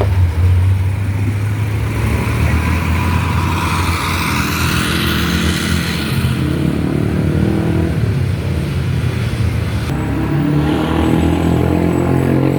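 Large bus diesel engine running close by with a deep, steady rumble, loudest in the first second. A rush of higher noise swells and fades between about four and six seconds in.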